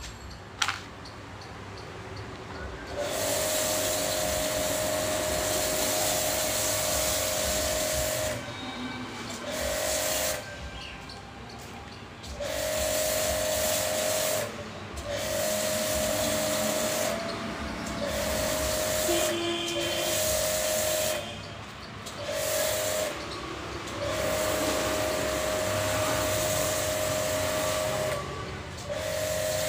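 A pressure washer spraying snow foam through a foam lance: a steady hiss with a steady hum from the machine. It starts about three seconds in and cuts out and restarts several times as the spraying stops and starts. A sharp click comes about half a second in, before the spraying begins.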